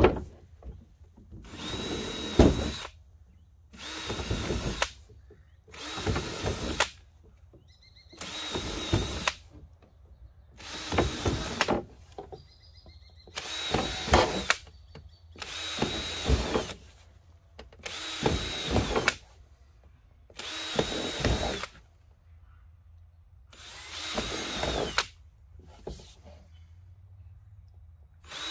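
Electric drill boring holes through a plastic well pipe in about ten short runs of a second or so each, one every two to two and a half seconds. The motor whine holds steady through each run.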